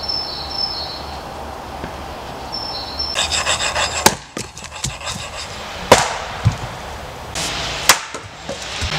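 Axe blows splitting birch logs on a chopping block: three sharp cracks about two seconds apart in the second half. A short fast rattle comes just before the first blow.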